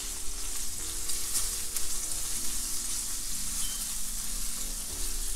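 Cut-up bacon pieces sizzling and crackling in a frying pan on the stove.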